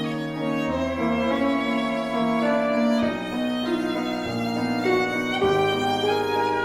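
A violin plays a sustained melody with accompaniment beneath it, the low bass notes changing every second or so.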